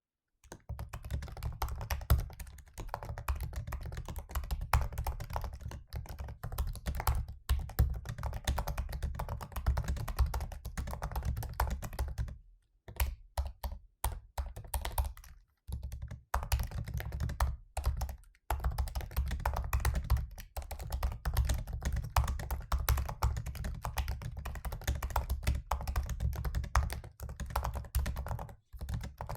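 Typing at a normal pace on a 2017 MacBook Pro laptop keyboard: a dense run of key clicks with a few brief pauses, the loudest around the middle.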